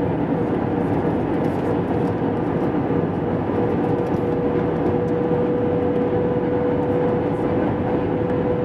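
Airbus A320 cabin noise on approach: the steady sound of the jet engines and the airflow over the fuselage, heard from inside the cabin, with a constant humming tone running through it.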